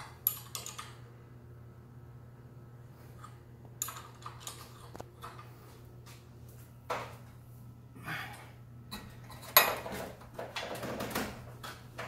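Steel winding bars clinking and knocking against the winding cone of a garage door torsion spring as the spring is adjusted. The metallic clanks are scattered, the loudest about ten seconds in, over a low steady hum.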